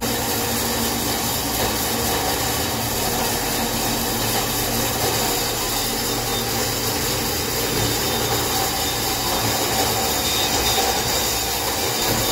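Swivel-head metal-cutting bandsaw running and cutting through a thin-wall bent metal pipe: a steady, even sawing noise over a low hum from the saw's motor.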